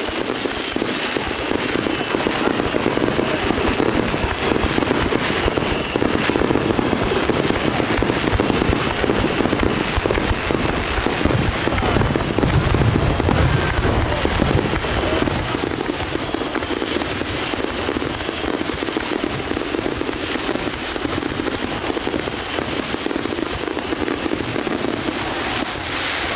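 Aerial fireworks shells bursting in a rapid, continuous barrage, with dense crackling over many booms. The deepest booms come about halfway through.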